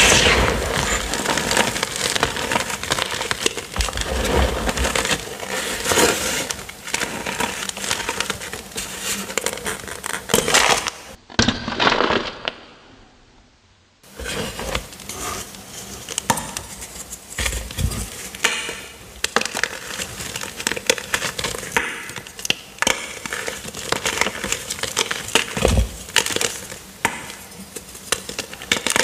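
Purple gym chalk blocks topped with cornstarch being crushed and crumbled by hand: dense crunching and crackling of breaking chalk, with sharp cracks as pieces snap. The sound fades away briefly about 11 seconds in and returns about 3 seconds later.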